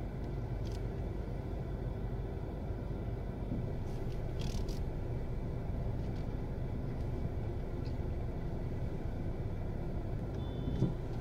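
Steady low rumble of a car running, with no rise or fall in pitch.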